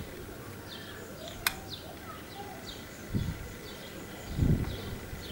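Small birds chirping over and over in the background, with a single sharp click from the pocket watch's case as it is handled and pressed shut about a second and a half in. Two low dull bumps follow near the end.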